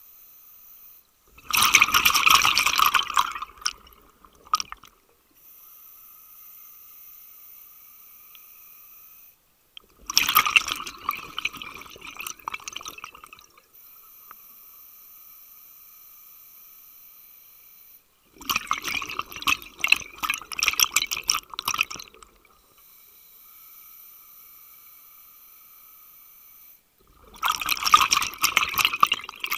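Scuba diver breathing through a regulator underwater: a quieter steady hiss with a faint whine on each inhalation, then a loud burst of exhaust bubbles on each exhalation, about every eight seconds, four breaths in all.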